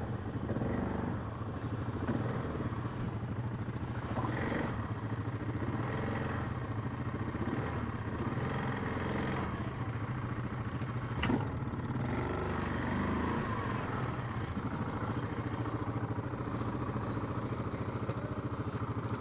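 ATV engines running steadily, with a single sharp clank about eleven seconds in.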